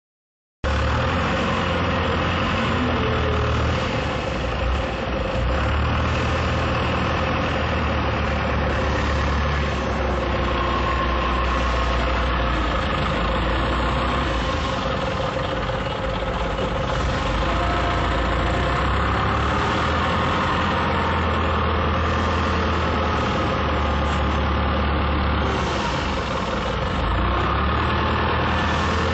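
Forklift engine running steadily with a deep low rumble while the truck lifts and carries a loaded steel pallet; the engine note shifts slightly a few times.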